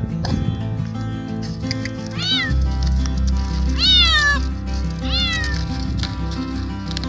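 Little stray cat meowing loudly three times, each meow rising and then falling in pitch, the middle one the loudest: begging for food. Background music plays underneath.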